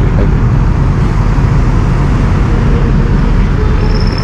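Busy multi-lane highway traffic: a loud, steady rumble of cars, buses and trucks passing, with no single vehicle standing out.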